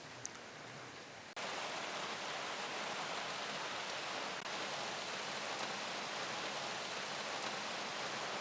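Steady rain hiss, which cuts in suddenly and louder about a second and a half in, after a quieter stretch of background.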